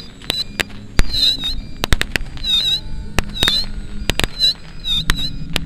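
Firecracker-type pyrotechnic bangs and pops going off at irregular intervals, the loudest about a second in, simulating a battle. Underneath is the steady drone of model aircraft engines, with repeated high chirping squeaks.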